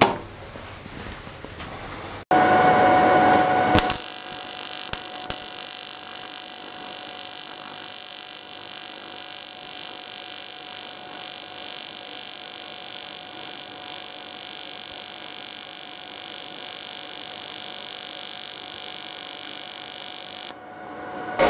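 Parweld XTT212 P inverter's AC TIG arc on 2.5 mm aluminium plate, straight AC at 50 Hz with no pulse at about 43 amps, buzzing steadily as a bead is run along the plate's edge. It is louder for a moment about two seconds in, then holds steady, and cuts off just before the end.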